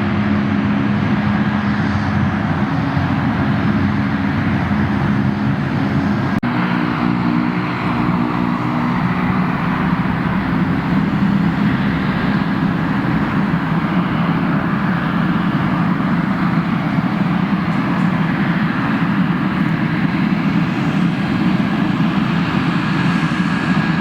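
Airliner jet engines running, a steady loud noise with a low hum; the hum changes pitch suddenly about six seconds in.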